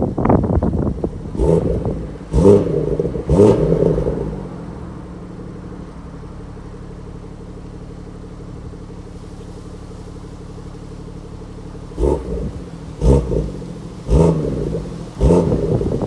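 BMW M135i's turbocharged four-cylinder engine revved through its exhaust while stationary: three quick throttle blips, then about eight seconds of steady idle, then four more sharp blips near the end.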